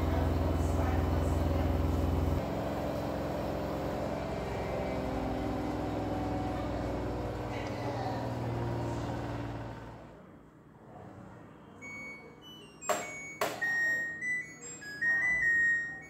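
LG Direct Drive washer-dryer finishing its cycle: the motor's low hum drops about two seconds in and the drum winds down, fading out near the ten-second mark. A couple of seconds later the machine plays its short end-of-cycle tune of beeps at several pitches, with two clicks partway through.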